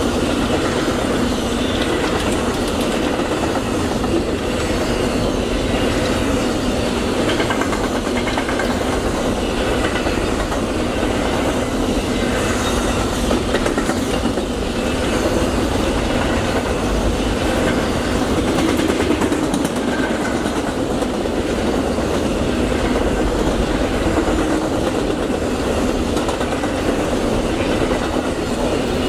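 Amtrak Auto Train's long string of enclosed autorack cars passing: a steady rolling rumble of steel wheels on rail that holds at an even level throughout.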